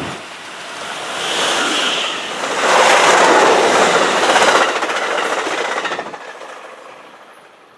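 Amtrak Pacific Surfliner train led by an EMD F59PHI diesel locomotive passing close by at speed: locomotive, then the steady noise of bilevel cars and wheels on the rails, loudest about three to four and a half seconds in, then fading after about six seconds.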